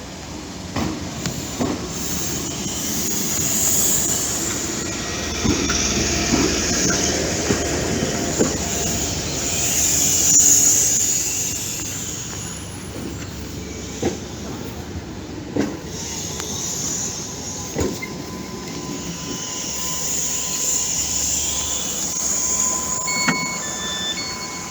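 Train running along the track, its wheels squealing and hissing in swells that rise and fall, with occasional sharp clicks from the wheels over the rail joints. Near the end a steady tone and a series of short electronic beeps start.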